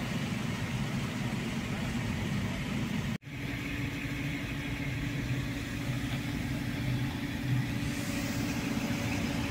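Steady low hum of a car's engine running at idle, heard from inside the cabin while the car waits in slow traffic. The sound cuts out for an instant about three seconds in.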